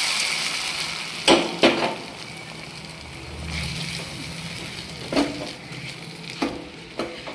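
Cashews and raisins fried in hot dalda sizzling as they are poured onto rava kesari in a steel pan, the sizzle fading over the first second or so. A steel spoon then stirs the thick kesari, with several sharp metal clinks against the pan.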